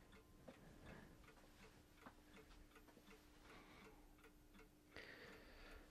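Near silence, with faint regular ticking at about three ticks a second and a soft hiss near the end.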